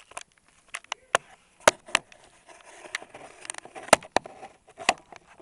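Camera handling noise: a run of sharp clicks and knocks with rustling as the camera is moved about. The loudest knocks come about a second and a half in and about four seconds in.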